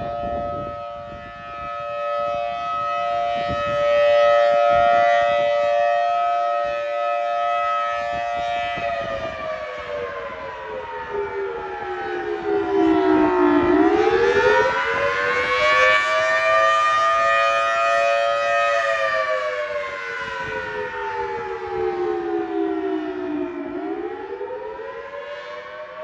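Federal Signal Thunderbolt 1000T outdoor warning siren sounding its monthly test. A steady two-note chord holds for about nine seconds, then drops into slow wails that sink and climb back up, with the loudness swelling and fading throughout.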